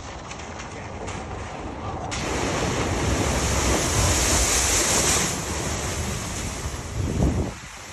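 A vehicle driving through deep floodwater at a ford, with a rush of splashing spray. The rush builds, is loudest for a few seconds in the middle and then eases. It surges briefly near the end and stops abruptly.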